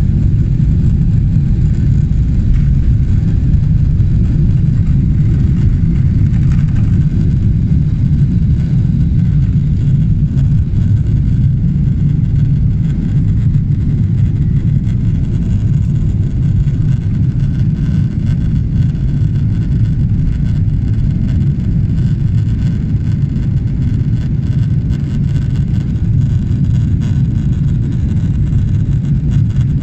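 Inside the cabin of a Boeing 777-300ER at takeoff thrust: a loud, steady, deep rumble from its GE90 engines and the rushing air as the airliner lifts off the runway and climbs.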